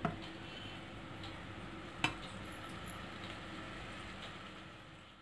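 Chicken and drumstick pieces sizzling faintly and steadily in an aluminium pot on a gas burner as they cook through, with one sharp click about two seconds in.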